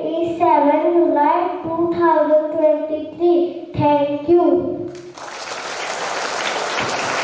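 A child's voice singing into a microphone in held, level notes, followed about five seconds in by applause that grows and then cuts off abruptly.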